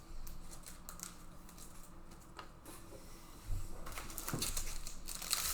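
Rustling and crinkling of foil trading-card packs and cards being handled, with scattered soft clicks that get busier and louder about four seconds in.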